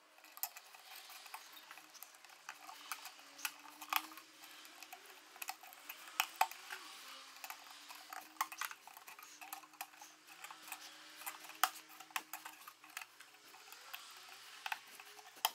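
Thin wooden kumiko strips clicking and tapping against each other and on a wooden board as they are laid out and pushed together at their sawn half-lap notches into a grid. The light clicks come irregularly, several a second at the busiest.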